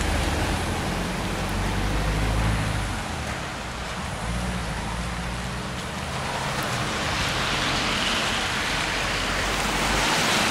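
Vans driving past on a wet road: a low engine drone as a Ford Transit goes by, then the hiss of tyres on wet asphalt that grows louder near the end.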